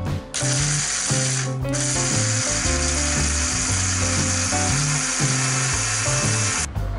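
AEG personal blender motor running, grinding dried herbs and spices into powder in its bottle jar: a short run of about a second, a brief stop, then a longer run of about five seconds that cuts off near the end. Background music plays under it.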